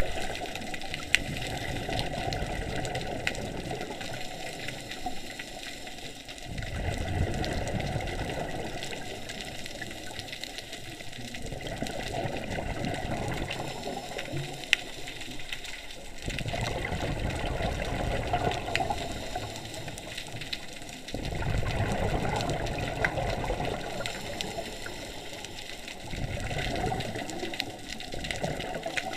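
Scuba regulator exhaust bubbles heard underwater: bubbling surges several seconds long that come round every five to ten seconds with the diver's breathing, with a few faint clicks between them.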